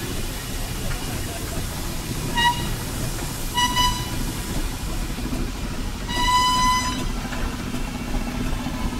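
A steam whistle toots three times: two short blasts, then a longer one, all at the same pitch. A steady low rumble of running steam engines sits underneath.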